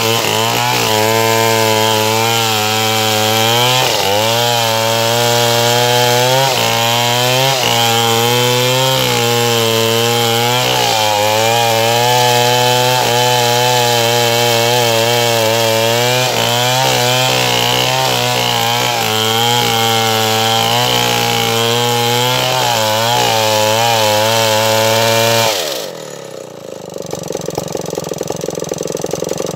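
Stihl 070 two-stroke chainsaw running at full throttle while cutting acacia wood, its pitch wavering as the load on the chain changes. About 25 seconds in the throttle is released: the pitch drops sharply and the engine settles to an idle.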